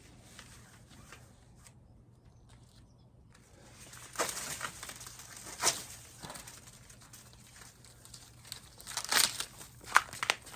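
Corn husks being torn back and rustled in several sharp bursts, starting about four seconds in after a quiet stretch.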